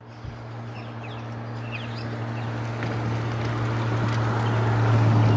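Scooter's motor humming steadily at one low pitch, growing louder as it rolls along, with a few faint bird chirps in the first two seconds.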